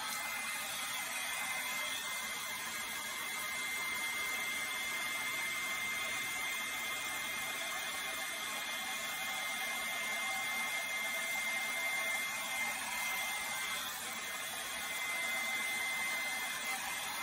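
Hand-held hair dryer running steadily, blowing air, with a thin high whine from its motor over the rush of air.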